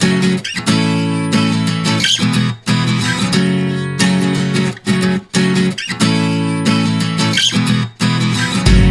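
Background music: a guitar strumming chords, with short breaks between them.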